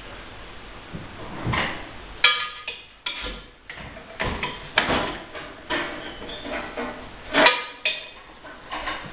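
Irregular knocks and metallic clinks of hand tools and fittings against the pipework under a ceramic pedestal basin, about a dozen sharp strikes, some ringing briefly, the loudest late on.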